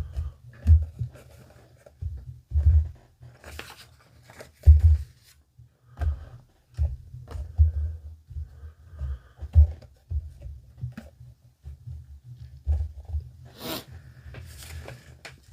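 Handling noises: irregular dull bumps and knocks with short bursts of rustling or crinkling, the clearest about four seconds in and near the end.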